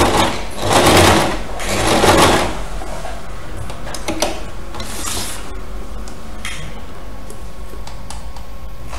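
Electric household sewing machine stitching through a knitted wool sweater in three short bursts over the first couple of seconds. After that comes a quieter, steadier stretch with a few light clicks.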